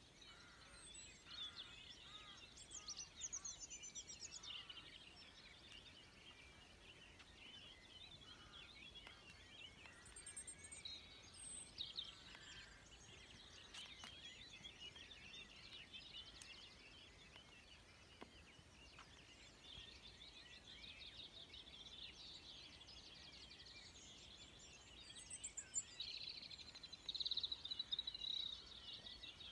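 Dawn chorus: many songbirds singing at once, a faint, dense tangle of overlapping songs, trills and chirps, with one bird singing louder near the end.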